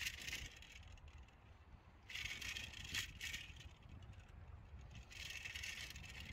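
Faint rattling and rolling noise of a bicycle riding over the concrete panels of a railroad crossing, with a light hiss that comes and goes.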